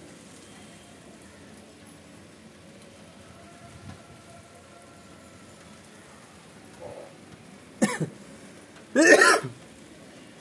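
Faint steady hiss, broken near the end by two short loud sounds from a person's throat, about a second apart; the second is the louder and longer.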